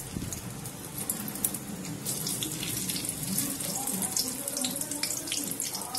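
Dried red chilli pieces sizzling in hot mustard oil in a kadai, a steady hiss with small crackles that grows louder about two seconds in.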